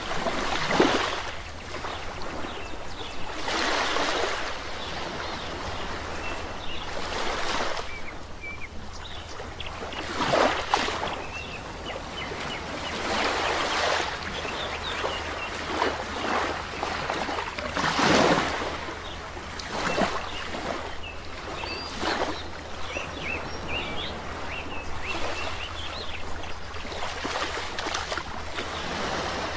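Sea waves washing onto a shore in irregular surges, one every few seconds, with small birds chirping faintly in the background.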